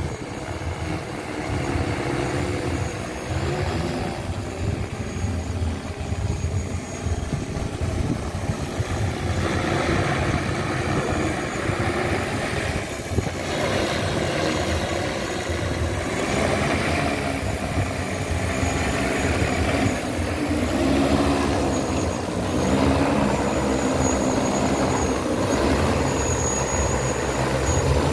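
A 20-litre agricultural spraying drone's rotors running as it hovers and manoeuvres low overhead: a loud, steady drone whose pitch shifts up and down as the motors adjust, with rotor wash buffeting the microphone.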